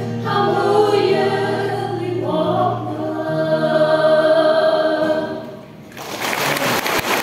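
Choir singing a hymn in long held notes. The singing dies away about five and a half seconds in, and a steady rushing noise follows near the end.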